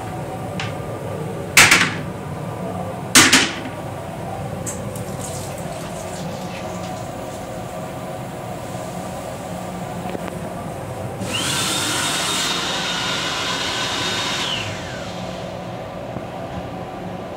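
Inside a Metro-North M8 railcar's restroom, a steady rumble and hum of the running train, with two loud knocks in the first few seconds. About eleven seconds in comes a hissing rush with a steady high whine that lasts some three seconds and winds down as it stops.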